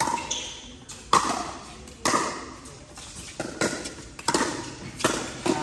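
Pickleball paddles striking a plastic pickleball in a rally: a string of sharp pops, about one or two a second, each echoing in a large hall.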